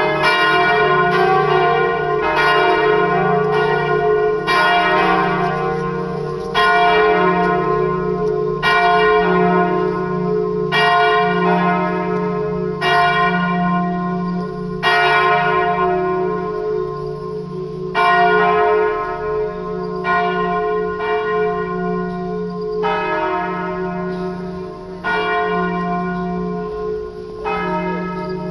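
Swinging church bells, a peal of four tuned D3, D♯3, F3 and G3, ringing together. Strike follows strike over a continuous low hum of the bells ringing on. In the second half the strikes come further apart and the sound grows a little fainter.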